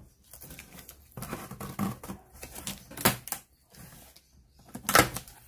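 Scissor blade scraping along and slitting the packing tape on a cardboard box, with rustling and scraping of cardboard as the flaps are handled. Two sharp knocks come about three seconds in and near the end, the second the loudest.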